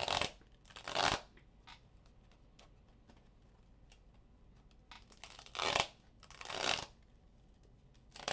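Four short rustling swishes, two near the start and two close together later on, with faint ticks between them.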